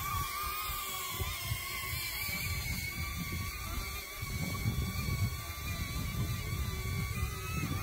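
Small DJI Neo drone's propellers whining at a steady pitch in flight, stepping up a little near the end, over an uneven low rumble.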